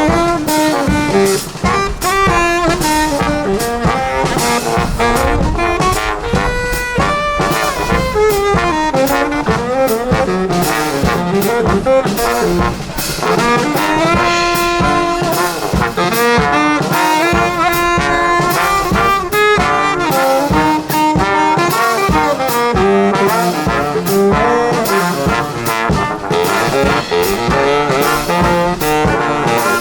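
A brass band playing a lively tune: several horns in harmony over a steady drum beat, without a pause.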